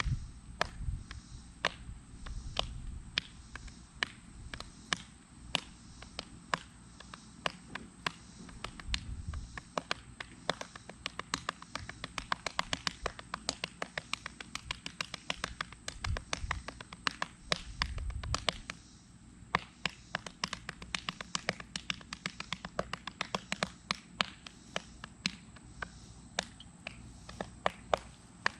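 A busy run of sharp clicks and taps, irregular and often several a second, with a few dull low thuds among them: metal tools being worked on motorcycle parts during reassembly.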